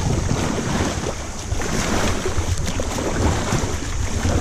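River water rushing and splashing around an inflatable raft as the crew paddles forward, with wind buffeting the microphone as a low rumble.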